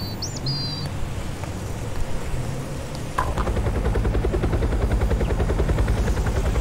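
A couple of bird chirps at the start over outdoor background sound. About three seconds in, after a click, a helicopter rotor sound starts up as a fast, steady chopping pulse and keeps going.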